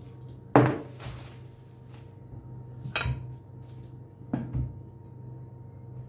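Kitchen clatter of dishes and utensils: a handful of sharp knocks as things are set down and handled, the loudest about half a second in, over a steady low hum.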